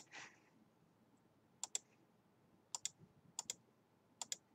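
Computer mouse button clicking: four quick press-and-release double clicks, spaced about a second apart, as the ends of line segments are placed in a CAD sketch.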